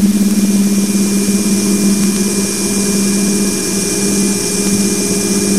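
Raw wideband audio from Voyager 2's plasma wave receiver near Neptune: a steady hiss with a strong low hum band. Through it runs a constant 2.4 kHz tone that comes from the spacecraft's power supply interference, along with a few fainter narrow tones.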